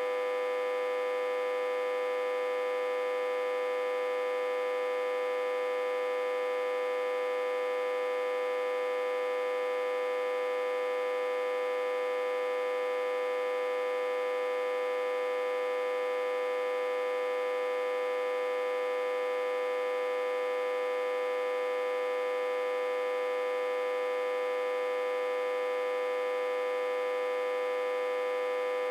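Autotransformer humming steadily, a single unchanging buzzy tone with one strong pitch and many higher overtones. It is reverse-connected to a step-down transformer with about 60–80 V on the input.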